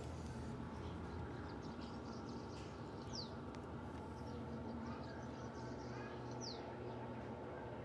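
Electrolux LED14 washing machine in its intermediate spin, a steady motor hum with several steady tones. A bird chirps briefly twice over it, about three seconds in and again near the end.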